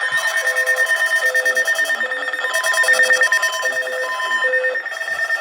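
Electronic alarm tones layered together: a steady high tone and a fast pulsing beep, with a lower beep repeating about once every 0.8 s and a second beep alternating with it. A voice is faintly heard underneath.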